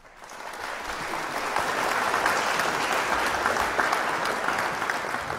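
Audience applauding, building up over the first second or two, then holding steady and easing off near the end.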